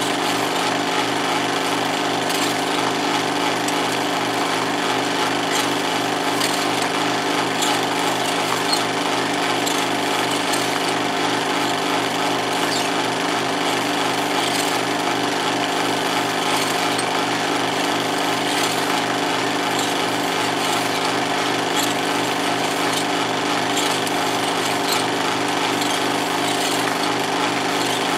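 16mm film projector running with a steady mechanical clatter from its film-advance mechanism.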